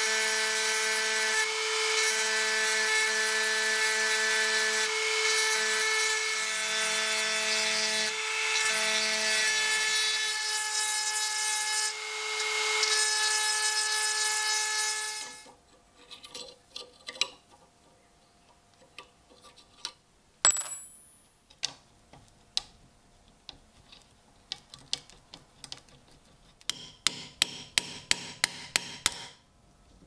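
A small high-speed rotary tool with a ball burr runs steadily, grinding down the head of a pin in a knife's steel bolster to take the knife apart, then stops abruptly. Small metal clicks of handling follow, with one sharp ringing clink. Near the end comes a quick, even run of about a dozen light hammer taps on a brass punch, driving the ground-down pin out.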